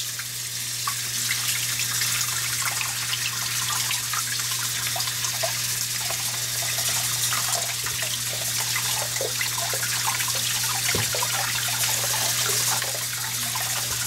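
Water running steadily from a faucet into a stoppered sink as the basin fills, splashing over a brass clock movement rinsed under the stream.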